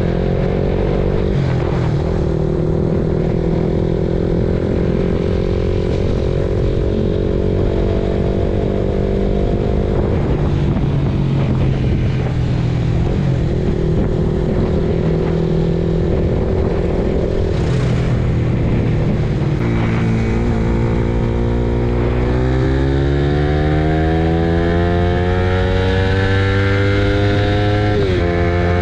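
Suzuki Raider Fi motorcycle's single-cylinder engine, fitted with an Aracer aftermarket ECU, running under way. Its pitch holds steady for stretches and drops sharply several times. In the last several seconds it climbs steadily, then drops abruptly near the end.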